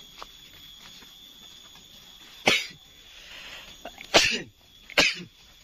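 Three short, sharp coughs: one about halfway through, then two close together near the end.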